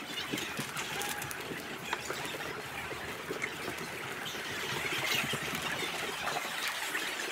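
Hubbub of a parliamentary chamber: many people talking and moving about at once during the division bells, with no single voice standing out.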